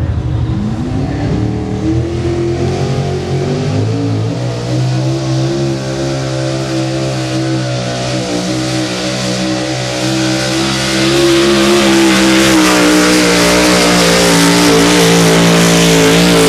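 Modified Dodge pickup's engine at full throttle, pulling a weight sled on a dirt track. It revs up in the first couple of seconds and holds a steady high pitch, then from about two-thirds of the way in it gets louder and slowly climbs in pitch.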